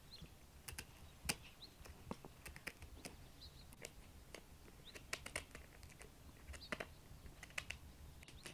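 Knife cutting and peeling a raw pumpkin: faint, irregular, crisp clicks as the blade goes through the firm rind and flesh.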